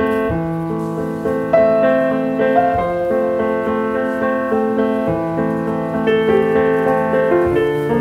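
Background piano music, a melody of held notes over sustained bass notes.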